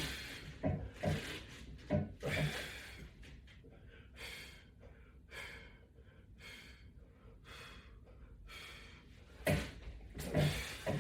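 A man breathing hard from exertion during a resistance-band exercise: short, rhythmic exhalations, about one a second, with a few knocks near the start and near the end.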